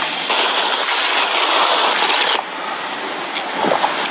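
A person slurping instant ramen noodles: a long, loud airy slurp lasting about two and a half seconds, then quieter.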